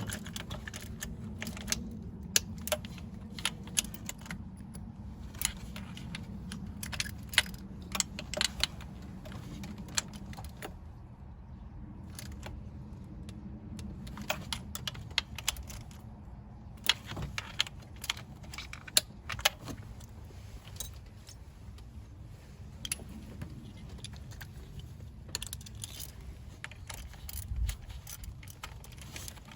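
Socket ratchet clicking in short irregular runs, with metal tools clinking, as bolts are tightened down a little at a time, over a steady low hum.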